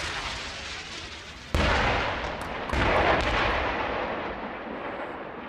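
Artillery shelling: a sudden explosion about a second and a half in, its rumble swelling again a second later and rolling away slowly, over the fading tail of an earlier blast.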